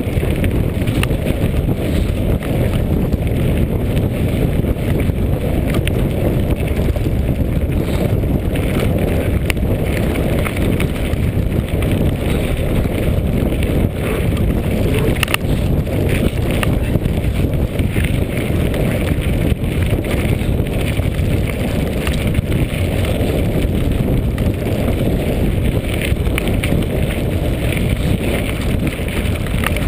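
Mountain bike rolling fast down a rocky gravel track: wind buffets the microphone with a steady low rumble, and scattered clicks and rattles come from the tyres and bike over loose stones.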